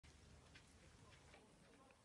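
Near silence: a faint low rumble of outdoor ambience with a few faint ticks.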